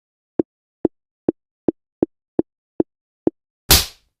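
Eight evenly spaced ticks, a little over two a second, over dead silence, followed near the end by a short, loud whoosh.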